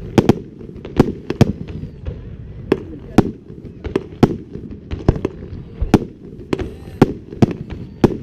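Fireworks display: shells bursting in sharp bangs at irregular intervals, about two a second, over a continuous low rumble.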